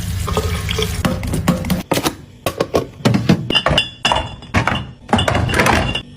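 Containers being handled and set down while a refrigerator is restocked: a quick run of knocks and clinks, several with a short ringing tone, ending abruptly near the end.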